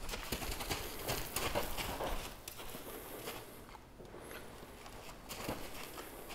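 Horse's hooves stepping on dirt: a run of irregular steps in the first two seconds or so, and another step about five and a half seconds in.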